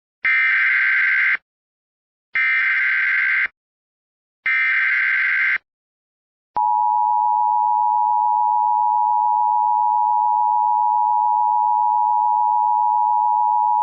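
Emergency Alert System tones: three SAME header data bursts, each about a second long, then about six and a half seconds in the steady two-tone attention signal begins, announcing a severe thunderstorm warning.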